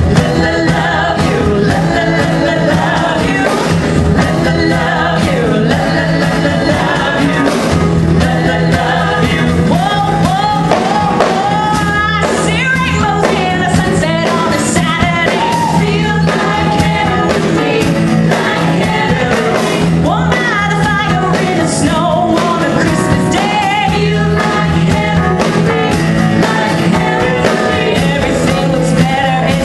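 A live song: women's voices singing into microphones over acoustic guitar and a steady beat.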